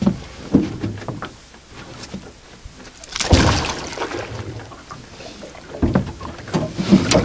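Knocks and thumps of gear being handled in a fishing boat while a hooked fish is brought in, with a louder noisy burst about three seconds in.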